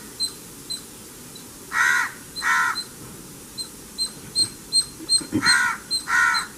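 Indian crow cawing: two pairs of short, harsh caws, one pair about two seconds in and another near the end. Faint, rapid high-pitched ticks go on underneath.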